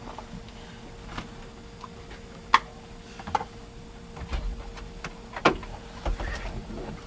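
Scattered sharp plastic clicks and knocks from hands working the glove box compartment of a Ford F-150 dashboard, two of them louder, about two and a half and five and a half seconds in. A faint steady hum runs underneath.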